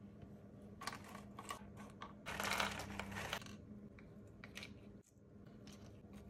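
Dry round crackers clicking and rustling as they are handled and laid down on a wooden board, with a louder rustle lasting about a second midway.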